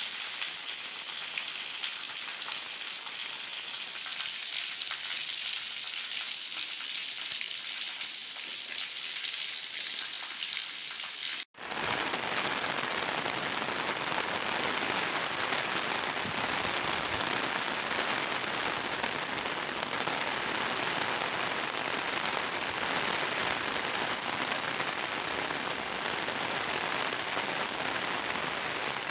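Steady monsoon rain falling on wet concrete paving and garden plants. There is a brief dropout about a third of the way in, after which the rain sounds louder and fuller.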